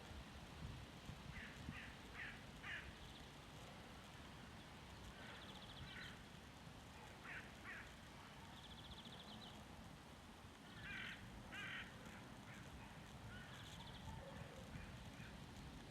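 Birds calling faintly in groups of two to four short calls, with a few quick high trills, over a low, steady wind rumble.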